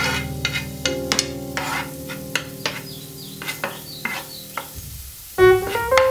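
A utensil scraping and tapping in a frying pan, about three strokes a second, as chopped garlic is stirred in hot oil with a light sizzle. Piano music plays underneath, louder near the end.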